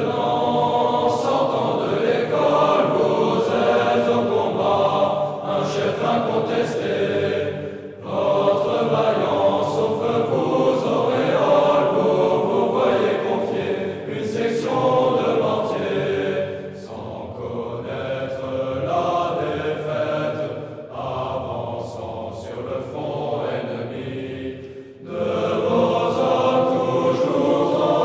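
A choir singing the French military promotion song (chant de promotion) in long phrases, with brief pauses between lines.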